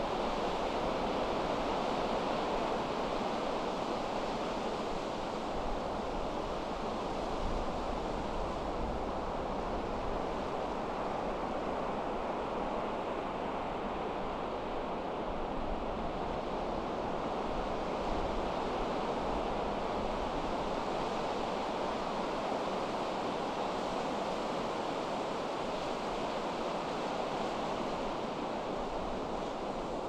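Pacific Ocean surf breaking continuously on the beach, a steady wash with only slight swells in loudness, mixed with wind blowing, including a low buffeting rumble of wind on the microphone.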